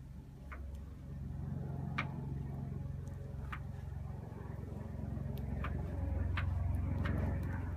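Campfire crackling, with sharp pops about once a second, over a low rumble that grows louder from about a second in.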